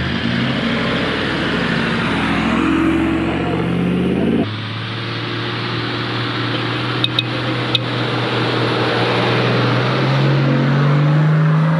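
Four-wheel-drive engines pulling along a soft sand track, over a steady rush of tyre and wind noise. The engine note climbs as a vehicle accelerates in the first few seconds. The sound changes abruptly partway through, and the engine note rises again near the end.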